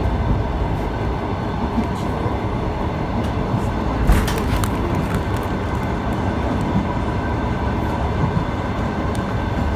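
An ET2 electric train running at speed, heard from inside the passenger car: a steady rumble of wheels on the rails with a few sharp clicks. The loudest clicks come about four seconds in.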